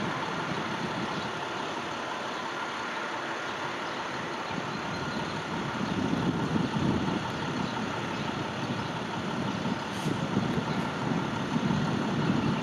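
Departing diesel-hauled passenger train running as it pulls away: a steady engine rumble and rolling noise that swells a little about halfway through and again near the end.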